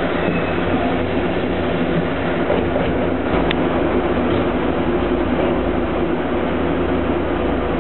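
Kawasaki-built subway train running at speed through a tunnel, heard at the open doorway between two cars: a loud, steady rumble of wheels and running gear on the rails, with a brief click about three and a half seconds in.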